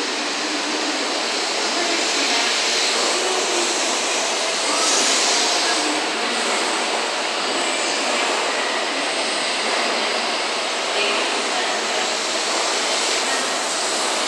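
N700 series Shinkansen train departing at low speed, its cars running past at close range: a steady, even noise of wheels on rail and the train moving.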